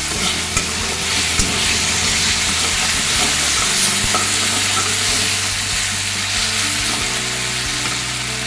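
Diced potato, peas, onion and tomato sizzling in hot oil in a metal kadai while a steel spatula stirs and scrapes through them. There are a few light ticks of the spatula against the pan.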